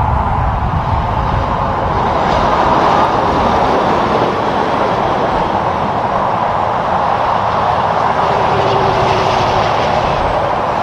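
Highway traffic as tractor-trailers and cars pass at speed, a steady, unbroken tyre roar.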